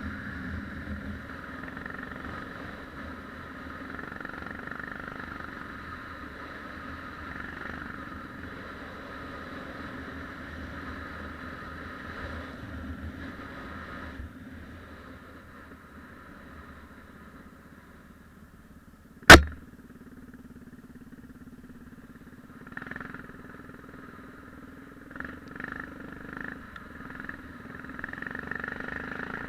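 Yamaha XT 600's single-cylinder four-stroke engine running, dropping lower around the middle and picking up again near the end. One sharp knock comes about two-thirds of the way through.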